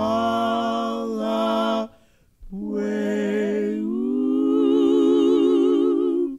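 A male voice sings two long held notes with wide vibrato, with no accompaniment. There is a short break about two seconds in, and the second note lifts a little partway through before it stops abruptly.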